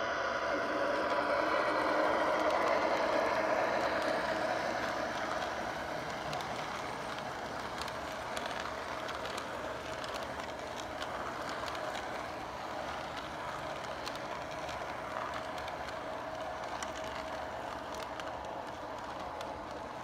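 MTH R33 O-scale model subway train running along the track: a steady rumble of wheels and motor, loudest in the first few seconds and then settling to an even level.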